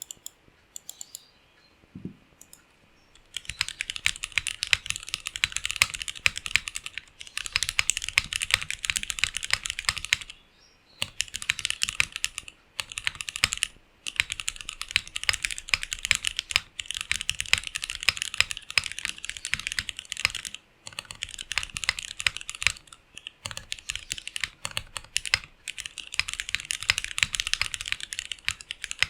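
Fast, continuous typing on a custom gasket-mount 60% mechanical keyboard with an acrylic sandwich case, polycarbonate plate and O-ring gasket mount, fitted with linear Cherry MX Black–type switches. The typing starts about three seconds in and pauses briefly a few times.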